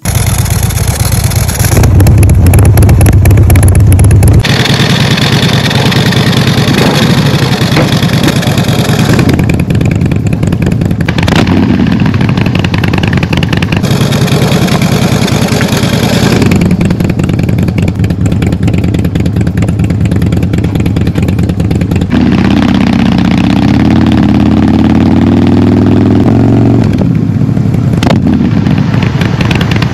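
Motorcycle engine running loud through twin stacked exhaust pipes, its note changing several times, then rising steadily in pitch for several seconds near the end as the bike accelerates.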